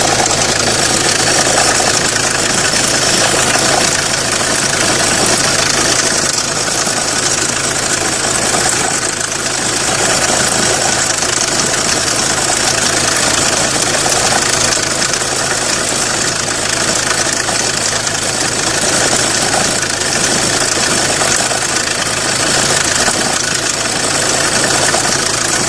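Renault Clio 1.5 dCi four-cylinder diesel engine running steadily at idle, the speed at which it has a noise and shakes that go away above about 1200–1300 rpm; the mechanic suspects the tensioner.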